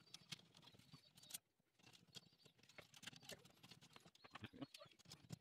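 Faint, scattered clicks and scratches of wires being handled and pushed into a steel electrical box.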